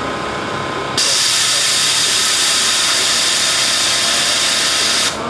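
A loud, steady hiss that starts suddenly about a second in and cuts off abruptly about four seconds later.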